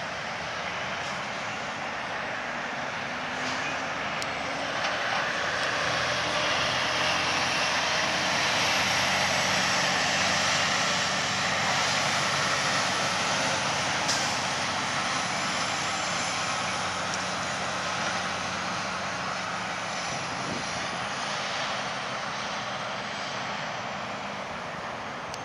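Tractor-trailer semi truck driving past: diesel engine hum and tyre noise swell to a peak about ten seconds in, then slowly fade over a steady traffic rumble.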